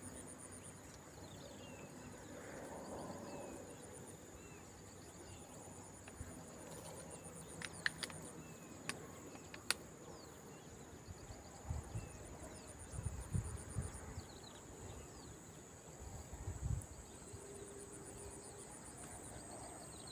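Insects drone steadily in a high, thin buzz, with trains of fast pulsing chirps coming and going above it, over a faint outdoor hiss. A few sharp clicks fall about eight to ten seconds in, and low thumps and rumbles follow a few seconds later.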